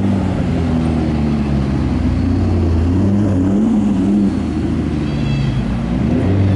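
Car engine running at low revs, its pitch wavering up and down, with a brief high squeak about five seconds in.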